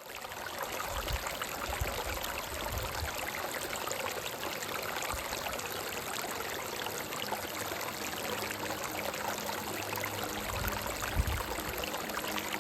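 Water in a rocky stream running steadily, a dense rushing and splashing that fades in at the start. Faint held low notes of soft background music come in about halfway.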